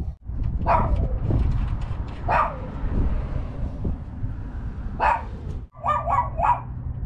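A dog barking several times in short bursts, over a steady low background rumble.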